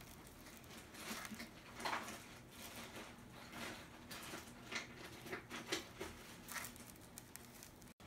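A cat's paws stepping on styrofoam packing and cardboard in an open box: faint, scattered scuffs and rustles.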